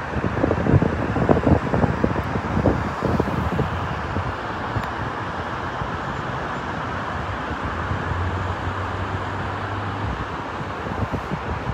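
Steady hiss of city road traffic on a busy multi-lane boulevard, heard from high above, with wind buffeting the microphone during the first few seconds.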